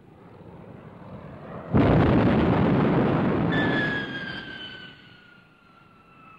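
A sudden loud roar bursts in about two seconds in and dies away over the next two seconds, then the high whine of a Gloster Meteor's twin jet engines, falling slowly in pitch as the aircraft dives past.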